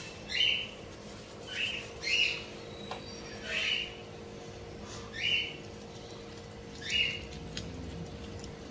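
A small bird calling: about six short calls, each falling in pitch, spaced one to two seconds apart.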